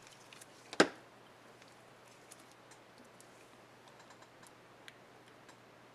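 A laptop keycap on an HP Stream 11 keyboard gives one sharp plastic click about a second in, then a scattering of faint light ticks as it is handled.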